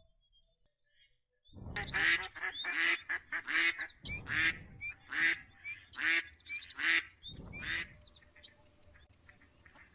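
Duck quacking: a run of about nine loud, evenly spaced quacks, roughly one every three-quarters of a second, starting about a second and a half in, then only faint soft calls near the end.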